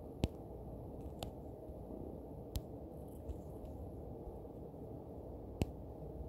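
Steady low room hum with four sharp, light taps scattered through it: fingertip taps on a phone's touchscreen.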